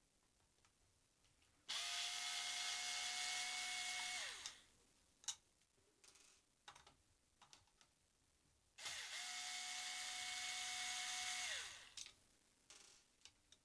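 Cordless drill-driver running twice, about three seconds each, backing out the screws of an RC car chassis's motor cover. Each run is a steady whine that drops in pitch as the motor winds down. Light clicks fall between the runs.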